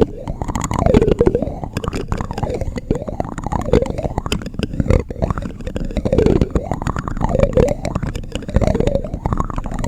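A spoon rubbed and tapped against the microphone in close-up ASMR. It gives a low rumble full of small clicks, with a hollow tone that swells and fades roughly once a second.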